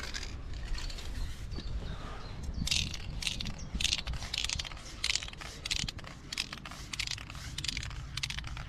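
Aerosol spray paint can sprayed in many short hissing taps, about three a second in places, laying down fine strokes of paint.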